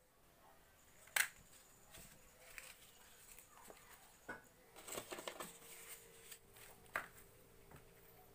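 Faint scattered clicks, crackles and rustling as a small wood fire is lit and its kindling catches. There is a sharp click about a second in and another near seven seconds, and a faint steady hum sets in about halfway through.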